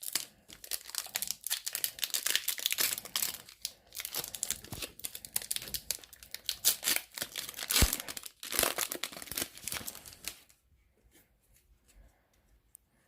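Crinkly wrapper of a Panini Donruss basketball card retail pack being torn open and crumpled by hand, a dense crackling with sharp tearing, stopping about two and a half seconds before the end.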